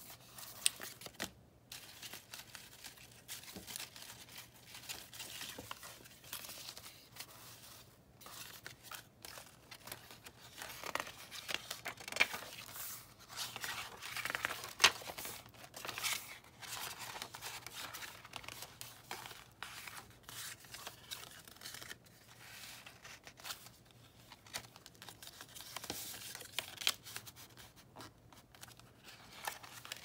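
Scrapbook-paper and paper-bag pages of a handmade junk journal being turned and handled: irregular paper rustling and swishing, with a few sharper flicks.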